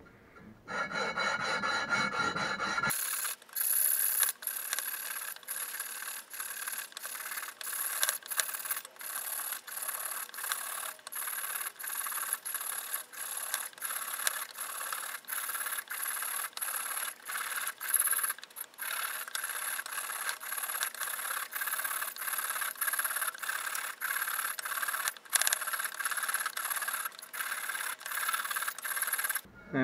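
Table saw blade teeth scraped, one after another, across oiled 240-grit sandpaper, sharpening the blade by hand: a steady run of short rasping strokes that starts about three seconds in.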